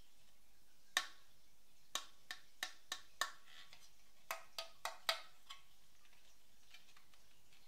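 Plastic parts of an Epson Stylus Photo PX720WD printer clicking and knocking as they are handled and fitted into the back of the printer. About eleven sharp clicks come in two clusters between one and five and a half seconds in; the first is the loudest.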